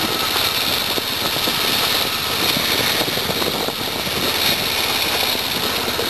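Vehicle engine running steadily while the vehicle moves slowly.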